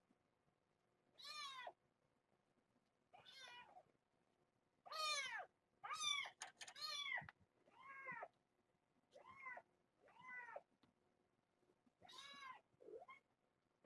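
Young kittens, about three and a half weeks old, meowing repeatedly: about ten short, high-pitched meows at irregular intervals, several of them close together near the middle.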